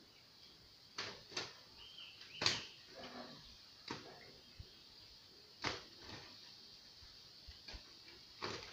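A series of about six sharp knocks or clicks at irregular intervals, the loudest about two and a half seconds in.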